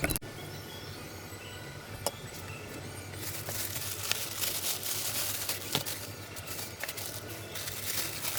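Rustling and crackling with scattered sharp clicks, starting about three seconds in, over a low steady hum; a sharper click at the very start and another about two seconds in.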